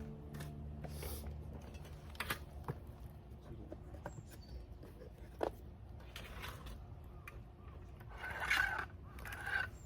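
Wood campfire crackling, with scattered sharp pops and a louder rustling hiss near the end.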